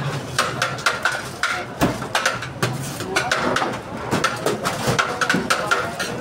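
Metal scoop repeatedly clinking and scraping against a large steel serving tray as chicken biryani is dished into plastic boxes, in quick irregular knocks, with voices murmuring behind.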